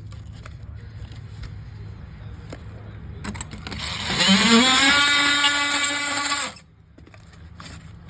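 Hand-held electric power tool starting up, its motor whine rising in pitch for about a second, then running at steady speed for about two seconds and stopping abruptly.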